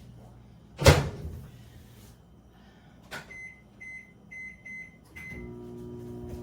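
Microwave oven door shut with a knock, then a series of short keypad beeps as the time is entered, and the microwave starts running with a steady hum near the end.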